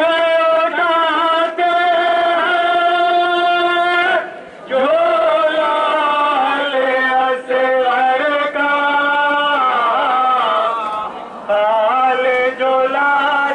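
A man's voice chanting a noha, a mourning lament, in long held, wavering phrases, with short breaks about four seconds in and again near eleven seconds.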